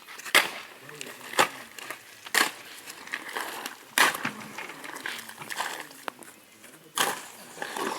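Shovel scraping and striking through a heap of sand, gravel and cement while concrete is mixed by hand, with sharp scrapes every second or few seconds.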